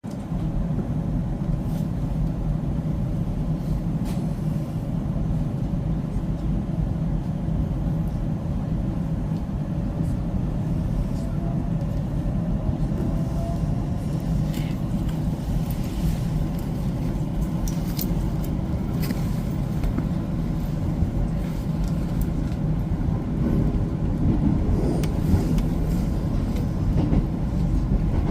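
JR West 225 series electric train running, heard from inside the car: a steady low rumble with scattered sharp clicks from the wheels and track.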